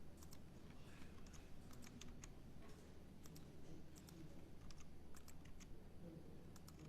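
Faint typing and clicking on a computer keyboard: short keystrokes scattered irregularly over a low steady hum.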